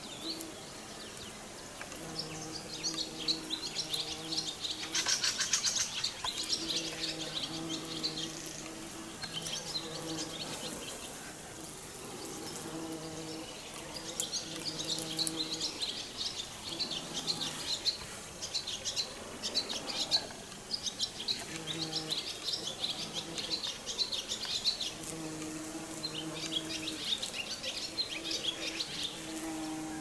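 Small songbirds chirping and singing over and over, with a low steady hum that comes and goes in stretches of a second or two.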